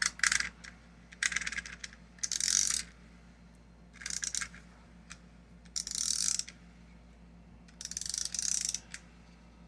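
Clockwork mechanism of a wind-up swimming duck toy ratcheting in about six short bursts of rapid clicking, with quiet gaps between them.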